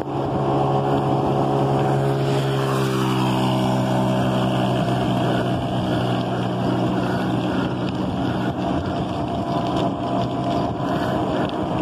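Motor engine running steadily at one pitch, with a short drop in pitch a few seconds in.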